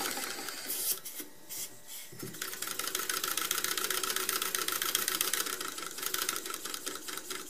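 Small homemade single-cylinder steam engine running on air from a refrigerator compressor, its piston, crank and valve gear clattering in a fast, even ticking rhythm. About a second in the clatter drops away, and about two and a half seconds in it picks up again and runs on steadily.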